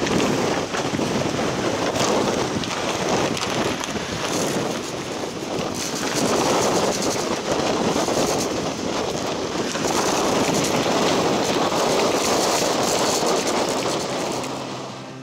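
Loud wind noise from a gale of about 40 knots buffeting the microphone, surging and easing in gusts.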